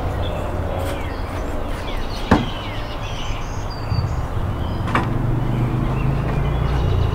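Outdoor ambience: a steady low rumble of a distant vehicle that grows louder in the second half, with small birds chirping. Two sharp knocks, one a little over two seconds in and one about five seconds in.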